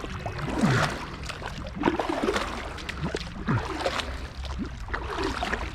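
Water splashing and gurgling around a kayak on a river current, with irregular knocks and scrapes against the hull.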